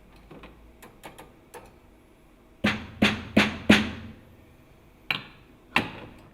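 A series of sharp knocks: a few light clicks, then four loud knocks in quick succession, and two more near the end, each ringing briefly.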